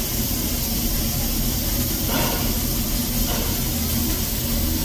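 Narrow-gauge steam locomotive 'Walter E. Disney' standing at the platform, hissing steam steadily with a low hum underneath.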